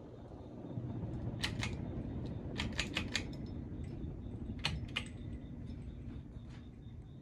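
Hampton Bay Tiffany Sonoma ceiling fan running with a steady low hum. Sharp clicks cut in over it in small irregular groups, twice about a second and a half in, four times near three seconds in, and twice near five seconds in.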